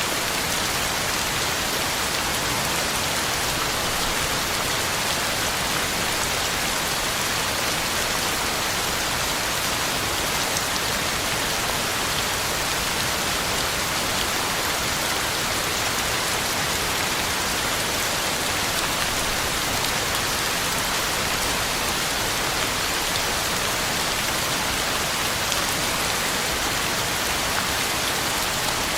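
Heavy rain falling steadily, an even hiss of drops striking the ground and leaves.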